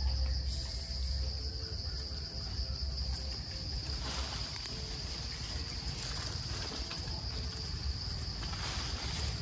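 Steady high-pitched drone of insects, one unbroken tone, over a low rumble.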